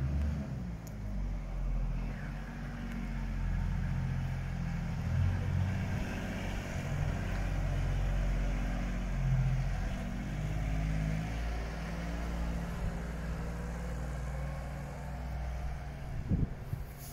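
A vehicle engine running, a low hum whose pitch shifts up and down a few times, with a few short knocks near the end.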